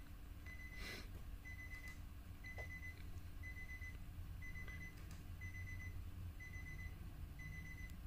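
Electronic warning beep repeating steadily about once a second, each beep short and at one pitch, over a low steady hum. A brief rustle or click about a second in.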